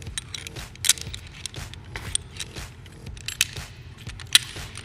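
Metal rope-access hardware clinking and clicking as it is handled: carabiners and a Petzl ASAP fall arrester being fitted onto the backup rope. The clicks are irregular and sharp, the loudest about a second in and again near the end.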